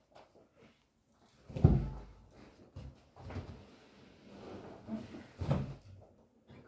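Knocks and rustling of a person sitting down in an armchair and settling a guitar on the lap, with a heavier thump about a second and a half in and another about five and a half seconds in.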